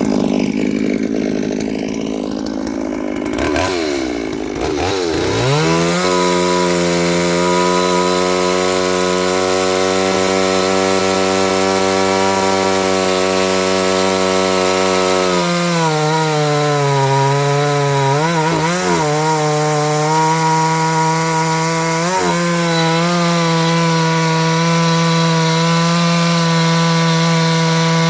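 A petrol chainsaw revs up and is held at full throttle, a steady high engine whine. About halfway through, the pitch drops a little and dips now and then as a brand-new semi-chisel chain cuts into dry blackbutt hardwood.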